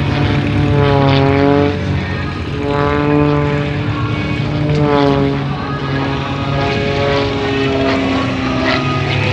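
Edge 540 aerobatic plane's six-cylinder piston engine and propeller during aerobatic manoeuvres, the engine-and-propeller tone sweeping up and down in pitch several times as the plane swoops past and changes power.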